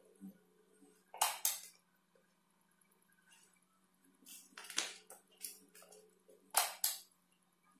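Pages of a large glossy book being turned and pressed flat by hand: short paper rustles about a second in and a few more between about four and seven seconds in.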